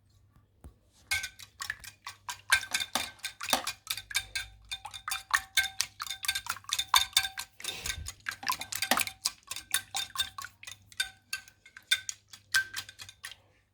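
Eggs being beaten in a bowl with a fork: rapid, repeated clinks of the utensil against the bowl, each with a brief ring.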